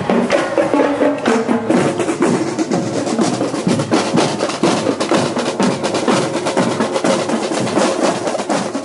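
Marching drumline of snare drums and bass drums playing a fast cadence, with rapid snare strokes and rolls over the deeper bass drum hits.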